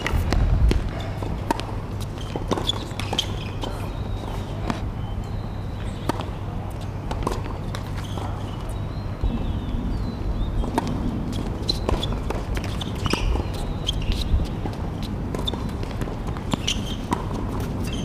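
Tennis ball being hit and bounced on a hard court: short sharp racket strikes and ball bounces scattered throughout, with shoe scuffs, over a steady low rumble.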